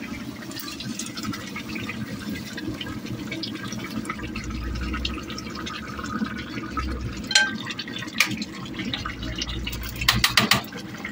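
Pot of chopped squash simmering with a steady watery bubbling while fried onions are pushed off a frying pan into it with a spatula; a few sharp scrapes and knocks about seven seconds in and again near the end.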